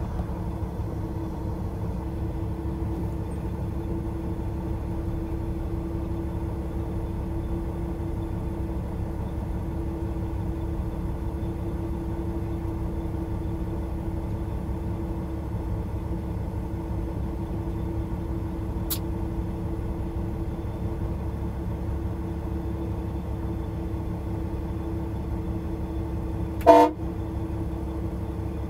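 Semi-truck engine droning steadily, heard inside the cab, with one short, loud horn toot near the end.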